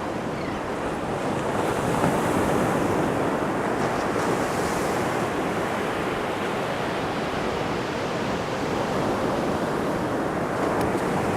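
Ocean surf breaking and washing onto a sandy beach, a steady rushing wash that swells slightly with each wave, with some wind on the microphone.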